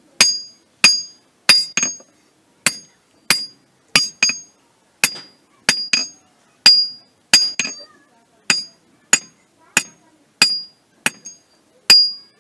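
Blacksmith's hand hammer striking iron on a small anvil, hammering out a sickle blade: steady blows about one every half second or more, each with a bright metallic ring, some followed by a quick lighter tap.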